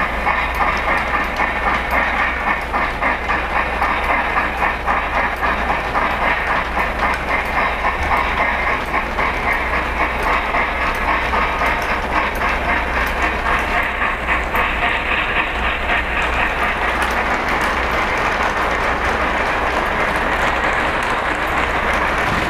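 Lionel O-gauge model train, a Pere Marquette 1225 steam locomotive pulling a string of cars on plastic-based track, running past with a rhythmic clatter of wheels over the rail joints and a steady low hum.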